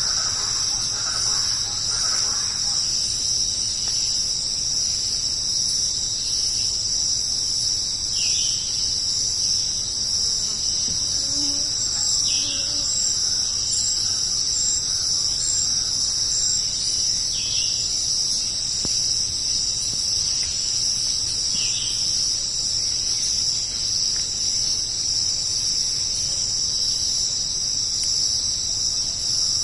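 Steady, unbroken high-pitched insect chorus. A few short, falling high calls sound over it, about four seconds apart, in the middle part.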